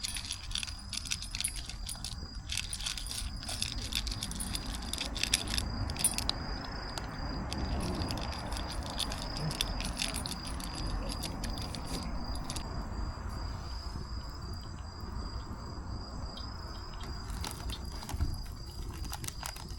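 Wood campfire crackling, with irregular sharp pops, over a steady high-pitched insect trill.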